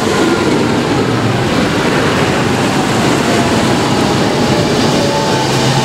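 Large modern farm tractors driving past close by, one after another, their diesel engines running loud and steady.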